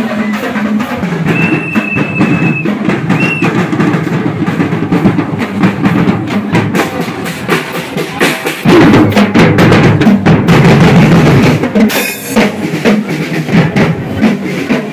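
Marching-band snare and bass drums playing a steady parade cadence, louder as the drummers pass close about nine seconds in. A long whistle blast and a short one sound in the first few seconds.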